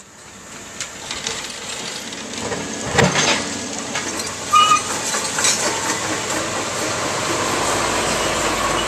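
Bridge construction work: heavy machinery running over a steady noise, with metal knocks and clanks, the loudest about three seconds in, and a short squeal about halfway through.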